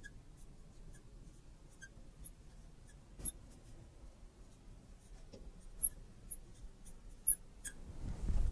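Fluorescent marker writing on a glass lightboard: quiet strokes broken by short, sharp squeaks of the marker tip, the loudest about three seconds in and a quick run of them near the end.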